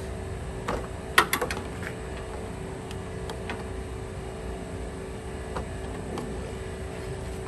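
Scattered sharp clicks and knocks of parts and hand tools being handled during radiator removal work on a car, the loudest cluster of clicks about a second in, over a steady low hum.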